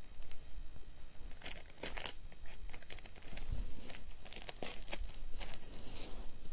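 Butter paper and carbon paper crinkling and rustling under the hands as they are smoothed and pinned onto cloth, in a string of short, uneven crackles from about a second and a half in.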